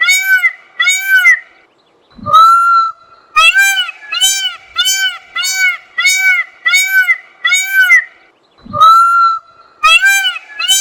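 Peacock calling in a fast series of short, arched honking notes, about two a second. The series is broken twice by a longer upward-sliding call, a little after two seconds in and near the end, each starting a new run of notes.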